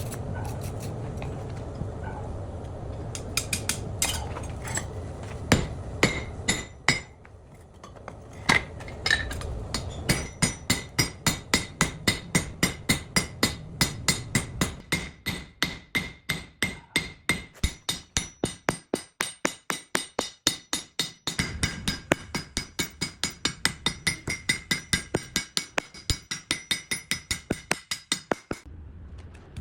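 Hammer striking metal in wrought-iron forging work. A few scattered blows come first, then from about ten seconds in a steady run of about three ringing strikes a second continues until near the end. A low steady rumble is heard in the first few seconds.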